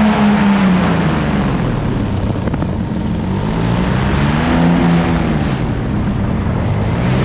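Paramotor engine and propeller running in flight, its pitch sinking after the start, rising and falling again around the middle and climbing once more near the end as the throttle changes, with a steady rush of wind.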